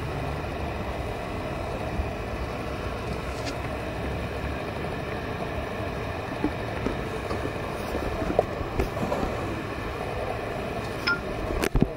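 Steady outdoor street background noise with a low rumble, and a few sharp clicks near the end.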